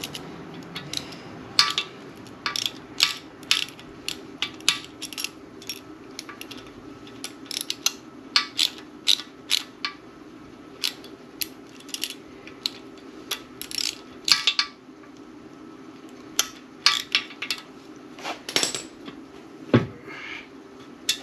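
Irregular metallic clicks and clinks of hand tools working a sheet metal screw into a Ford FE engine block, over a steady low hum.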